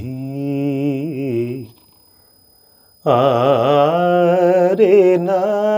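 A solo voice singing long, drawn-out notes with vibrato, in two phrases with a pause of about a second and a half between them.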